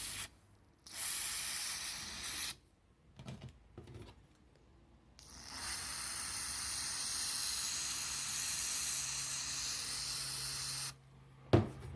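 Spray lubricant hissing from an aerosol can in bursts, oiling the fan motor's bushing wicks: a short burst, one of about a second and a half, then a long steady spray of about five and a half seconds, with a few faint knocks in the pause between.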